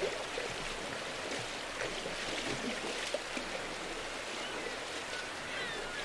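Shallow, stony salmon river running steadily over rocks.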